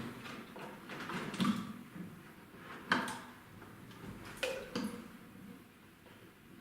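A rat trap holding a caught rat being handled: rustling and a few sharp knocks and clicks, the loudest about three seconds in and two more near the middle of the second half.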